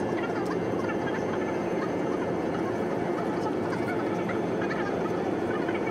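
Steady cabin noise of an Airbus A320 in flight: the even rush of its jet engines and airflow heard from inside the passenger cabin, a constant low drone.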